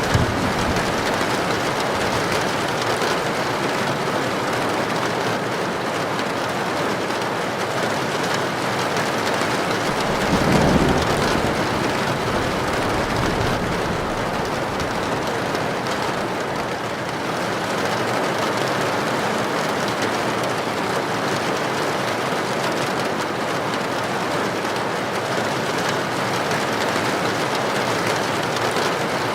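Heavy rain drumming steadily on a tin roof, an even dense hiss. About ten seconds in a short low rumble of thunder swells up and fades within a second or two.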